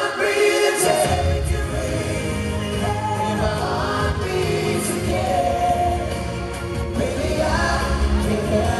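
Male pop vocal group singing a slow ballad in harmony over a backing track, with the bass coming in about a second in.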